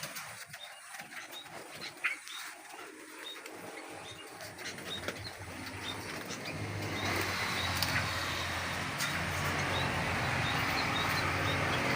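Aviary birds calling with short high chirps. About halfway through, a steady low hum with a hiss comes in and keeps going.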